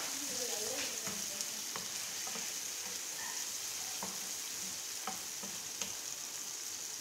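Sliced onions and pieces of cooked meat sizzling in oil in a nonstick frying pan while a wooden spatula stirs them. The spatula taps and scrapes against the pan about once a second over a steady sizzle.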